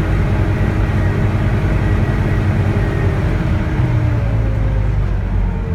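Volvo B9TL bus with its Volvo D9A diesel engine running under way, heard on board, with the steady whining tones the title calls 'hoovering'. From about halfway through, the pitch glides down as the bus eases off.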